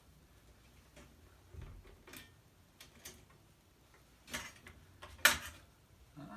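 Scattered light clicks and taps of a screwdriver and screws against a flatscreen TV's metal and plastic parts as a screw is taken out. A sharper click about five seconds in is the loudest.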